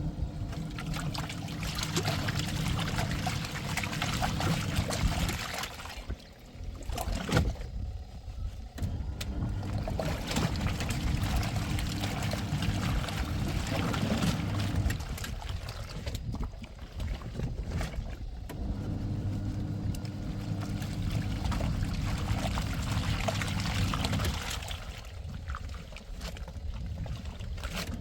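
Washing machine agitating a load of blankets in water: the motor hums with water sloshing for about five seconds at a time, stopping for a few seconds in between, three times over.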